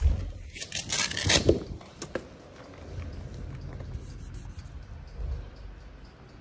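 Knocks and scrapes of a carbon-fibre eFoil stabilizer wing being lifted out of its moulded foam case, bunched in the first two seconds, then quieter rubbing and handling.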